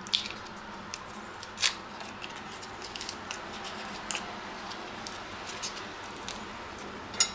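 Small foil-wrapped portion of herb butter being handled and unwrapped: scattered sharp crinkles and clicks, the loudest about a second and a half in, over a faint steady background hiss.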